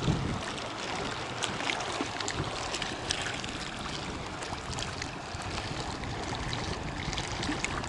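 Small waves steadily lapping and splashing against a concrete bank, with a few faint ticks.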